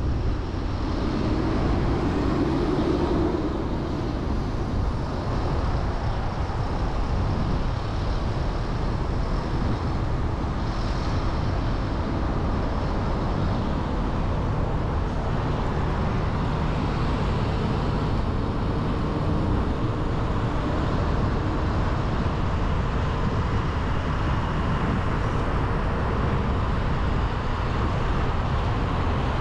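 Steady outdoor city street noise: a low, continuous rumble of road traffic.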